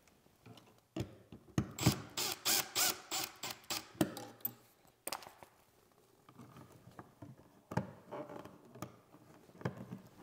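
Cordless drill-driver turning the grounding screw at the back of a metal electrical box, heard as a quick string of sharp clicks and short whirs for a few seconds. Then softer clicks and rustles as the bare ground wire is handled at the box.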